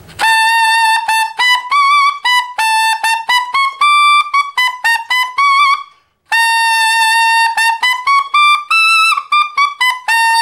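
Tenor saxophone playing quick, separately tongued notes high in the altissimo register, stepping up and back down. There are two runs with a brief gap about six seconds in. The notes are fingered with one finger on the palm E-flat key, one-fingering from B natural up toward G sharp.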